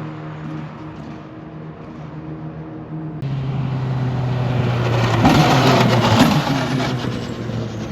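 Single-seater formula racing car engines running at speed. After an abrupt change about three seconds in, a car grows louder as it approaches and passes, loudest around five to six seconds in.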